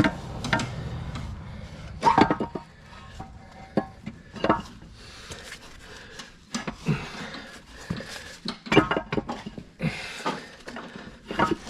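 Irregular sharp metal clanks and knocks from heavy tractor drivetrain parts being handled and fitted during a torque amplifier install.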